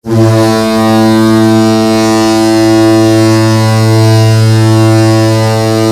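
Seattle Kraken arena goal horn sounding one long, loud, deep, steady blast that starts abruptly.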